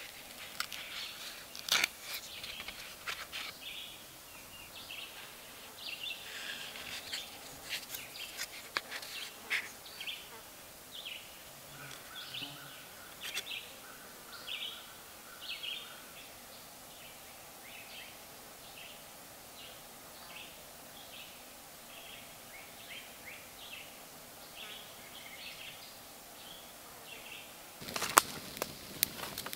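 Woodland ambience of birds and insects: short high chirps repeating irregularly, about one a second, over a faint insect buzz. A few loud sharp knocks come near the end.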